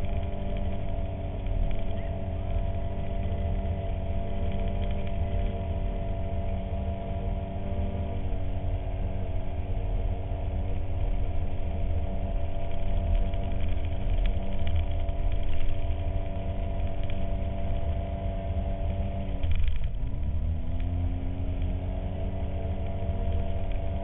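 Polaris RZR side-by-side's twin-cylinder engine running steadily while driving through snow, over a heavy low rumble. About twenty seconds in, the engine note drops sharply and then climbs back as it picks up speed again.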